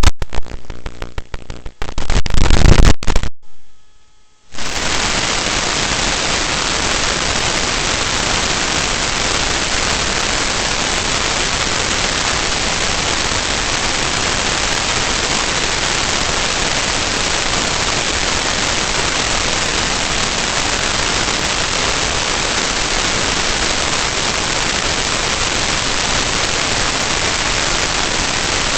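Steady, even static hiss that sets in abruptly about four and a half seconds in, after a brief loud passage and a short dropout.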